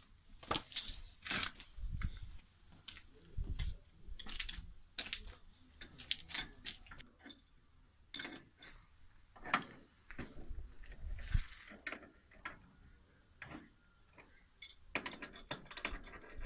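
Irregular clicks, clinks and knocks of tools and small metal parts being handled during installation work, with a quick flurry of clicks near the end.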